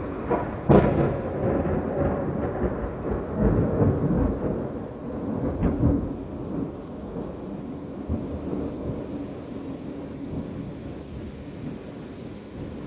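Thunder during a rainstorm: a sharp crack about a second in, then a rolling rumble that swells again and fades over the next several seconds, with steady rain underneath.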